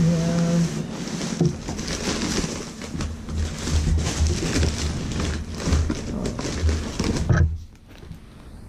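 Crumpled packing paper crinkling and rustling as it is pulled out of a cardboard box, with dull bumps from the box being handled; it stops about seven seconds in.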